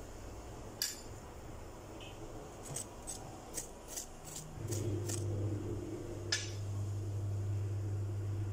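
A metal utensil clicking against fried bread pakora slices and their ceramic plate: one click, then a quick run of about seven light clicks, and one more a little later. A steady low hum comes in about halfway through.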